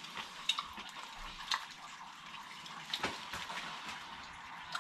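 Water running steadily into a stainless-steel sink, an even hiss, with a few faint clicks.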